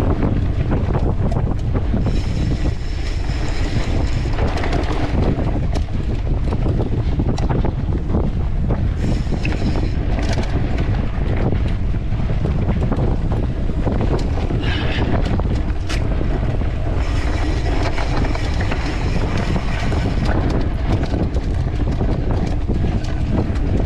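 Wind buffeting a small camera's microphone on a mountain bike ridden over rough, sandy forest trail, with steady rattles and knocks from the bike. A higher hiss comes and goes a few times.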